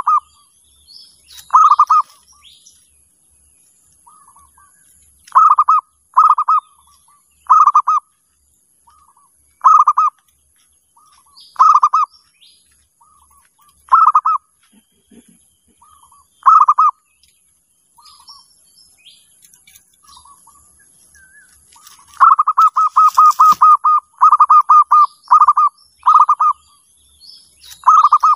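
Zebra doves (perkutut) cooing: short, loud, rolling bursts of quick staccato coos, repeated about every two seconds, with a faster run of calls back to back late on. Faint chirps of small birds sound behind them.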